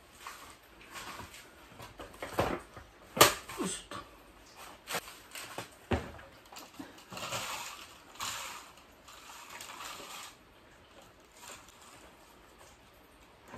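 Several knocks and clunks as a plastic bucket of potting soil is picked up and handled, the loudest about three seconds in. Then, from about seven seconds in, the soil is poured from the bucket onto a plastic seedling cell tray and spread by hand, rustling for about three seconds.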